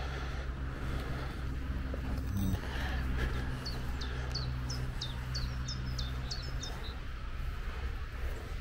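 A small songbird singing a quick run of about a dozen short, high notes, each falling in pitch, starting a few seconds in, over a steady low hum.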